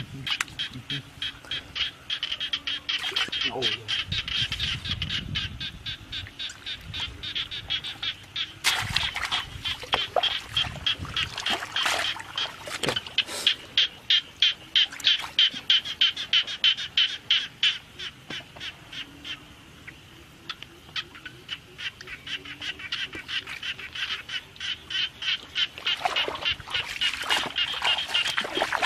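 A steady chorus of rapid, rhythmic animal calls, several pulses a second, fading for a few seconds past the middle and then coming back. About four and nine seconds in there is soft sloshing of shallow water as a hand gropes inside a bamboo plunge basket.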